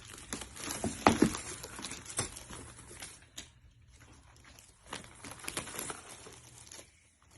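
Paper or plastic gift wrapping being rustled and handled as a package is opened, with scattered clicks and small knocks. The loudest handling is about a second in, and there is another burst around five to six seconds.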